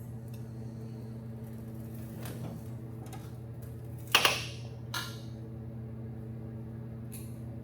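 Steady low mechanical hum with one sharp, loud metallic clank about four seconds in and a lighter knock a second later.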